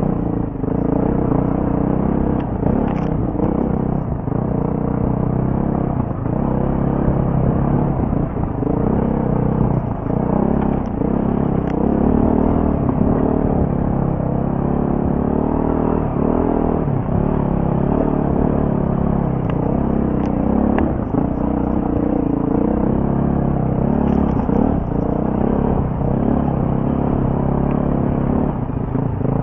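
BMW G450X single-cylinder four-stroke dirt bike engine running under load off road, its revs rising and falling throughout.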